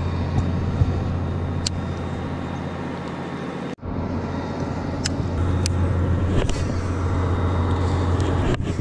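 Boat motor running with a steady low hum, with a brief dropout about four seconds in and another near the end.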